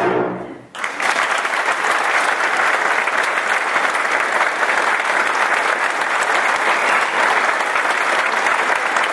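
The band's last chord dies away, and under a second in a large theatre audience breaks into steady applause that carries on at an even level.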